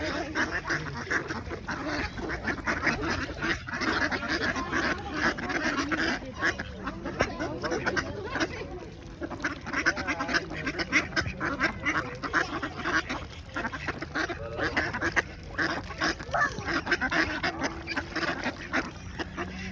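Many ducks quacking at once, a dense, continuous chorus of quacks.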